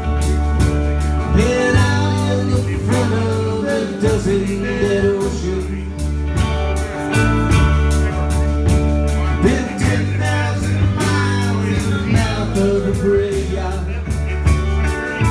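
A rock band playing live: electric guitars, bass guitar and a drum kit with a steady cymbal beat, about four strokes a second, under a man singing.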